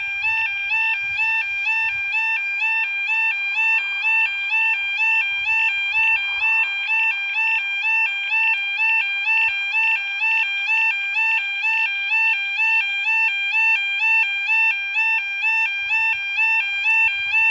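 Railway level crossing warning alarm sounding continuously: a two-tone electronic warble switching rapidly back and forth between a lower and a higher pitch. It means the crossing has been activated for an approaching train.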